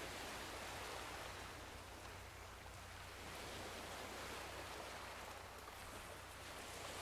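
Soft surf of waves washing onto a sandy beach, a steady hiss that swells and eases slowly every few seconds.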